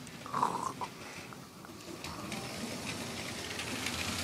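Small electric toy train motor running, its plastic Lego train rolling on plastic track with a faint steady whir and light clicking that slowly gets louder.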